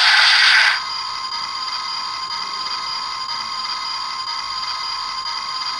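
Electronic sound effects from a Bandai King Joe Storage Custom toy, played through its small speaker in separation mode. A loud, noisy electronic blast cuts off under a second in, then gives way to a steady electronic hum of several tones.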